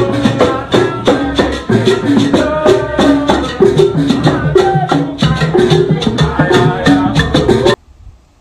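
Upbeat music with a quick, regular percussion beat under melodic lines, cutting off abruptly near the end.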